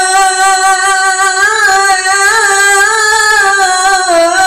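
A male qari reciting the Quran in a melodic tilawah style through a microphone. He holds one long drawn-out vowel in a high voice, ornamented with small wavering turns and dipping in pitch near the end.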